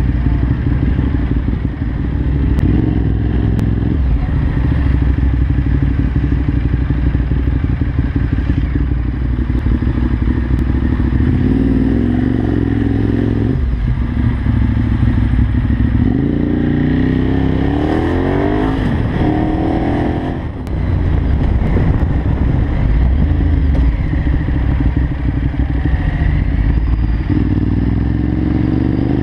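Kawasaki Z750 motorcycle engine running under way, heard from a camera on the bike, revving up and shifting through the gears several times, most clearly in the middle and again near the end.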